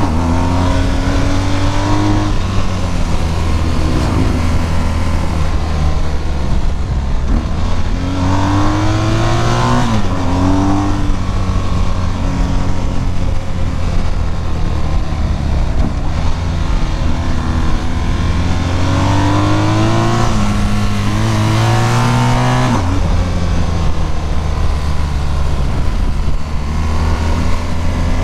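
BMW GS adventure motorcycle engine pulling through the gears on a winding road. Its pitch rises under throttle and drops back at each shift or roll-off, several times, over a steady low drone.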